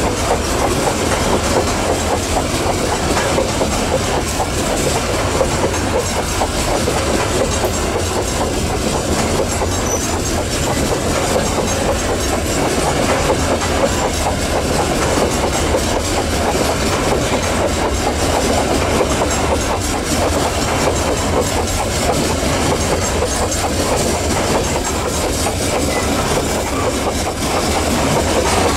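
Wagons of a long Babaranjang coal train rolling past, a steady, unbroken noise of steel wheels running on the rails.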